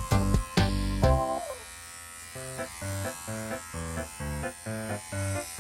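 Electric pet hair clippers buzzing steadily under cheerful background music; the music is loudest in the first second or so, and the clipper hiss stands out from about a second and a half in.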